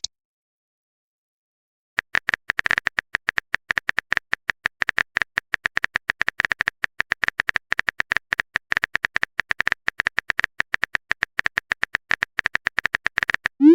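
Rapid phone-keyboard typing clicks, a fast run of short taps starting about two seconds in and continuing until just before the end.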